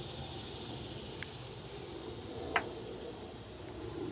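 Steady background ambience with a faint high hum, broken by two small clicks: a light one about a second in and a sharper one about two and a half seconds in.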